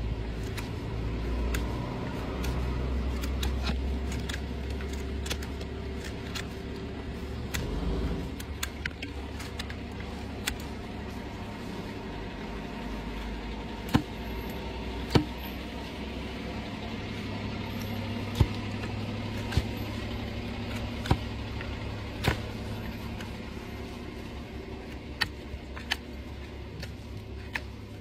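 A motor hums steadily at a low pitch. It eases off after about eight seconds, comes back, and fades near the end. Sharp clicks and taps are scattered over it, mostly in the second half.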